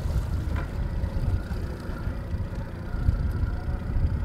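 Low, uneven rumble aboard a slow-moving fishing boat, with a faint steady high whine joining about a second and a half in.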